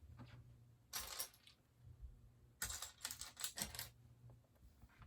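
Loose Lego plastic pieces rattling and clicking as they are handled, in two spells: a short one about a second in and a longer run of clicks from about two and a half seconds to nearly four.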